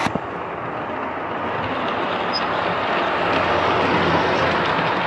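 Model train running past close by: a Santa Fe diesel locomotive's wheels rolling on the track and its motor humming, growing louder as it approaches. A couple of sharp clicks right at the start.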